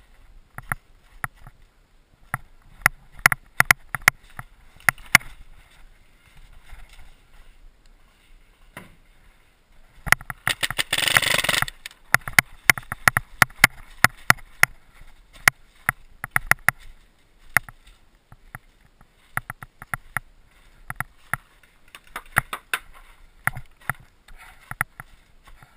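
Paintball markers firing around the field: irregular sharp pops, sometimes in quick strings. About ten seconds in, a dense noise lasting about a second and a half is the loudest sound.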